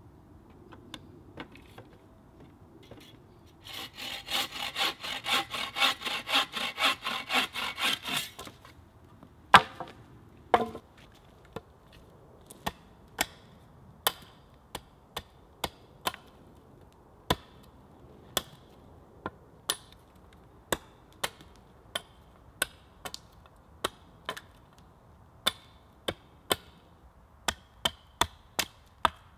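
Saw cutting through a wooden pole in quick back-and-forth strokes for about five seconds, then two wooden knocks. After that comes a run of sharp hatchet blows, one every half second to a second and a half, as a stake held upright on a chopping block is pointed.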